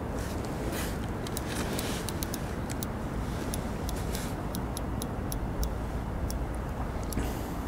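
Fixed-spool reel's clutch (drag) ticking irregularly, about three or four clicks a second, as a hooked carp pulls line against light tackle, over a steady low rumble.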